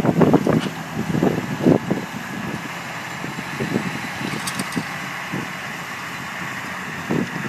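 Massey Ferguson tractor engine running steadily during ploughing, with wind buffeting the microphone in gusts over the first couple of seconds.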